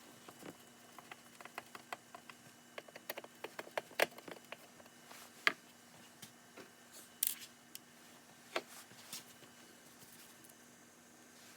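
Irregular light clicks and taps of small hard objects being handled, several dozen over about nine seconds, the loudest about four and five and a half seconds in, then it goes quiet.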